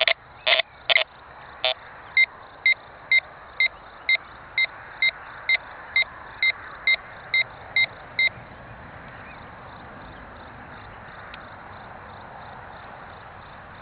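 Metal detector in multi-tone mode beeping in short, evenly spaced pulses, about two a second. For the first couple of seconds the beeps are low-pitched, then they switch to a higher tone. The beeping stops about eight seconds in, leaving a faint outdoor hiss.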